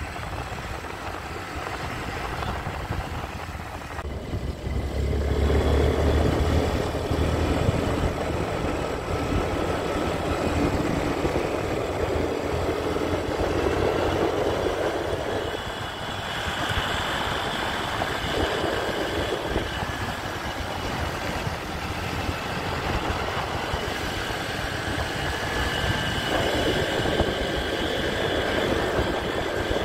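Motorcycle running along a road, its engine mixed with wind rushing over the microphone, the low rumble heaviest a few seconds in.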